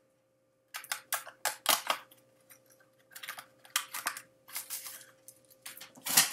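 Packaging being handled and unwrapped by hand: irregular bursts of crinkling and rustling with small clicks, starting about a second in, the loudest near the end.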